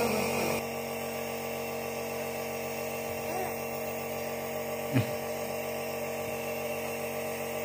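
Compressor nebulizer's small motor running with a steady hum. A brief short sound comes about five seconds in.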